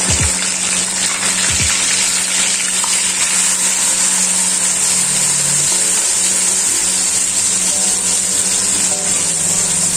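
Sliced onions frying in hot oil with whole spices in a karahi, a steady, dense sizzle, while a wooden spatula stirs them.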